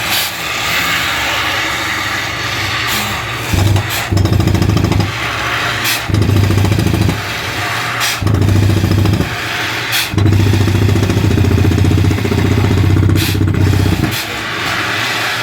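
Borewell drilling rig running: a steady engine noise with a loud low hum that cuts in and out repeatedly, in stretches of one to four seconds, the longest lasting about four seconds.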